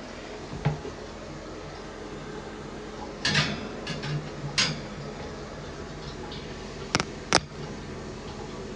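A steady low room hum with a few scattered handling clicks and a brief rustle. Near the end come two sharp clicks in quick succession.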